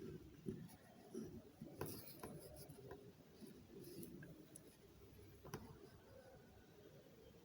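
Faint scratching and tapping of a pen drawing a diagram, with a few sharper strokes about two seconds in and again near the middle.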